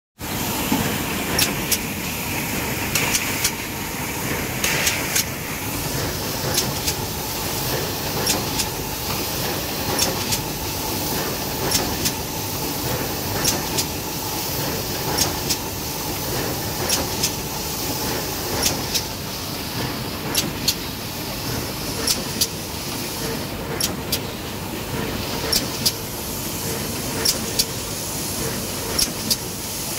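Cut-tobacco packaging machine running: a steady mechanical clatter with a sharp clack, often doubled, repeating about every second and a half to two seconds as the machine cycles.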